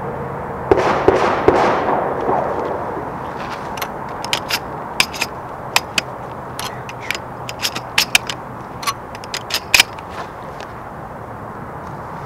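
A brief rustle of sling and gear, then a string of sharp, irregular metallic clicks and clacks as a Remington Versamax shotgun is handled and shotshells are pulled from belt carriers and pushed into it.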